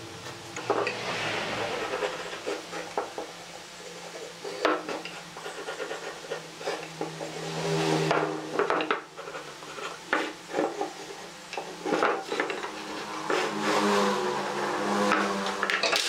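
Square pine beams being handled on a wooden workbench: repeated irregular knocks and scrapes of wood on wood as they are set down and slid about.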